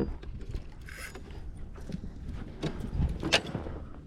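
Scattered knocks and clatter of gear being handled in a small fishing boat, with a brief hiss about a second in and a sharper knock near the end.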